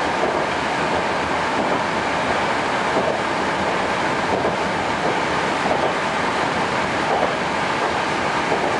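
81-765/766/767 "Moskva" metro train running at speed through a tunnel, heard from inside the car: a steady, even rumble of wheels and running gear with a faint steady whine.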